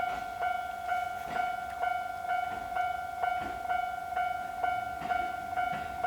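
Japanese level-crossing warning bell ringing its repeated 'kan-kan' alarm: a clear ringing tone struck about twice a second, evenly and without pause, signalling that a train is coming and the crossing is closed.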